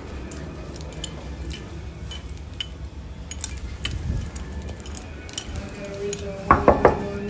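Handling noise from a phone microphone as the phone is moved about: a low rumble with scattered light clicks. Near the end come three loud, quick sounds close together.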